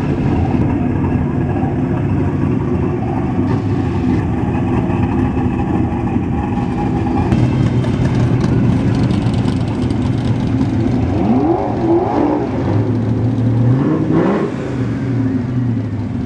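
Several sports-car engines idling close by, with a McLaren MP4-12C's twin-turbo V8 among them. About halfway through, a Cobra-style roadster with side exhaust pipes passes with a heavier, deeper engine note. Near the end, the engines are revved in short blips that rise in pitch.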